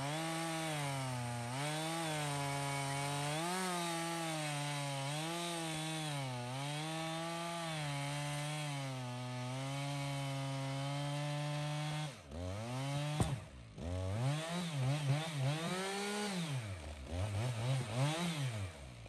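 Husqvarna two-stroke chainsaw cutting wood, its engine pitch wavering up and down as it works through the cut. About twelve seconds in it drops off briefly, then is revved up and down several times in quick swings.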